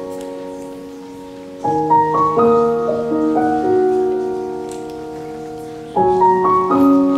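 Slow, gentle solo piano music: broken chords rise note by note, starting new phrases about two seconds in and again near the end, with the notes held and slowly fading between them.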